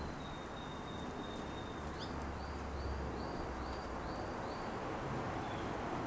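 Canary calling: a thin high whistle held for about two seconds, then a string of about seven short rising notes, a little over two a second. Steady low background noise runs underneath.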